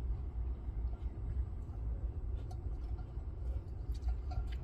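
Low, steady road and tyre rumble inside a moving car's cabin.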